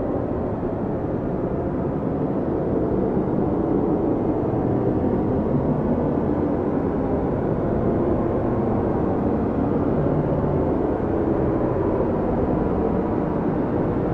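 Strong wind of a snowstorm blowing steadily, a low, even rushing noise that grows a little louder about three seconds in.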